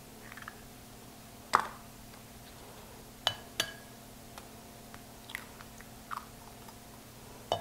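Hen's eggs being cracked one after another into a ceramic bowl: a few sharp cracks and clicks of shell, the loudest about one and a half seconds in.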